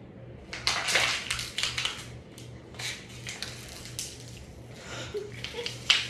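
A plastic bottle crinkling and crackling in a hand in several bursts, with a sharp snap near the end, over the pulsing hum of a running ceiling fan.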